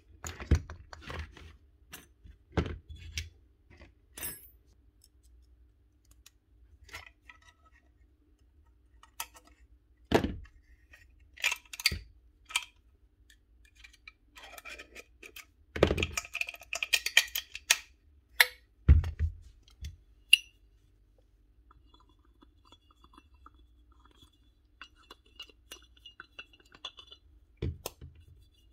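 Small metal parts of a Paslode gas nailer clinking, clicking and knocking as they are handled and fitted back together, with a few louder knocks and quiet gaps between.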